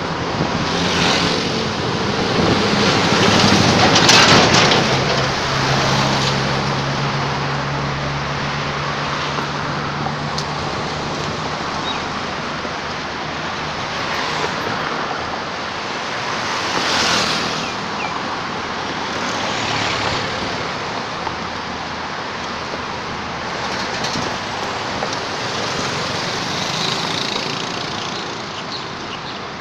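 Road traffic on a busy multi-lane road: cars, trucks and motorbikes going past one after another in rising and falling swells. A steady low engine hum runs for several seconds from about four seconds in.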